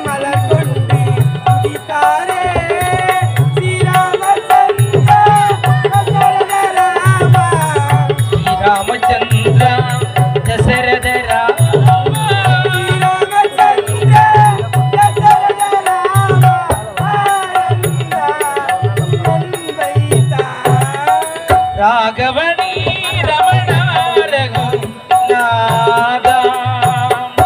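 A voice singing a winding melodic line over harmonium, with a hand drum keeping a steady rhythm under it: a song from a Tamil stage drama.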